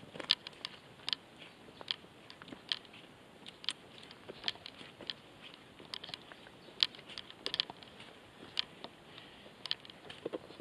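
Footsteps on loose stones and gravel: irregular, sharp clicks and crunches of rock knocking underfoot, about one or two a second.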